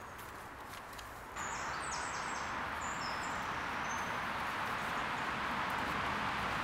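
Woodland ambience: a steady outdoor hiss that steps up suddenly about a second and a half in, with a few short, high bird chirps soon after. Before the step there are faint clicks and rustles.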